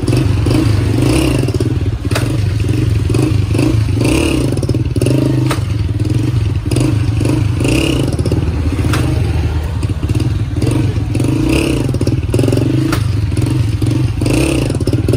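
Honda CG125's single-cylinder four-stroke engine running on the test run after a clutch plate replacement: a steady low drone whose note swells about twice a second, with light mechanical clatter.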